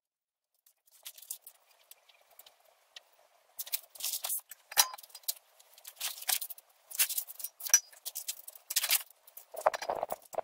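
Irregular sharp clicks and scrapes, a few a second, starting a few seconds in, with a broader rustling near the end.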